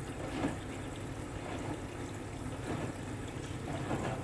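Hoover H-Wash 300 washing machine in its rinse, water sloshing in the drum over a steady low hum, with soft swells about once a second.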